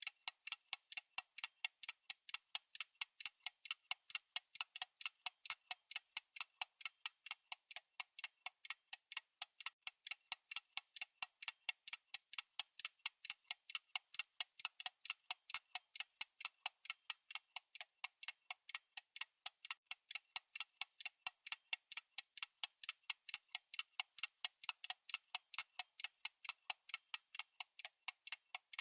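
Steady clock-style ticking of a countdown timer's tick track: quick, evenly spaced light ticks that alternate louder and softer.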